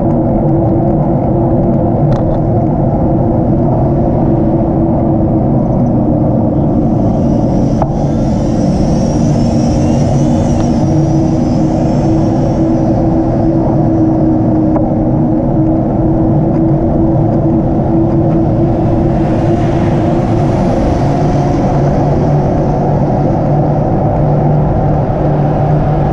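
Steady wind and road rumble on a camera riding along on a moving bicycle. Cars pass twice, about eight and twenty seconds in, each as a swell of tyre hiss.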